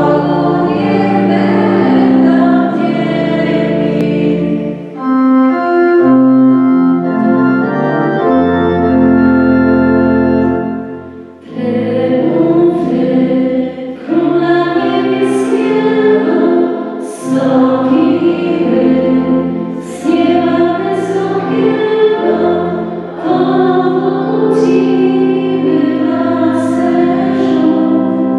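Organ playing held chords, then from about eleven seconds in, voices join to sing a hymn with the organ accompanying.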